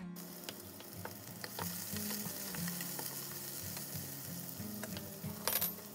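Sliced onions sizzling in hot oil in a pan, stirred with a wooden spatula, with small scrapes and ticks through the hiss. A brief louder noise near the end.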